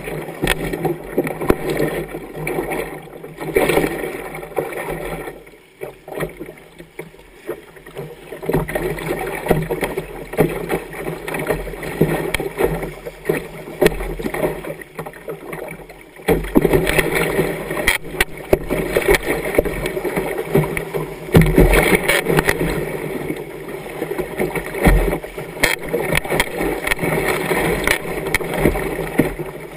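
Muddy river water rushing and splashing against the bow of a kayak as it runs riffles, heard close up from the deck; it eases off for a few seconds about six seconds in and grows louder again about halfway through.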